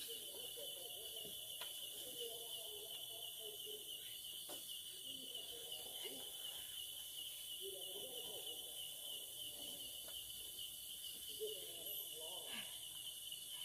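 Night insects, crickets among them, chirring in a steady high chorus. Faint low murmurs and a few small clicks come through at times.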